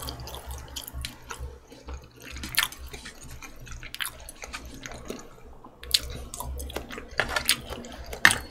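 Eating sounds: wet chewing and mouth sounds, with scattered light clicks of metal chopsticks against the dishes, over a low steady hum.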